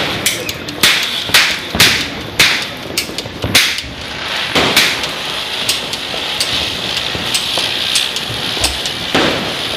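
Diwali firecrackers going off in quick succession: about two sharp bangs a second over the first five seconds. Then a steady fizzing hiss of spinning ground spinners (chakri) takes over, with scattered small pops.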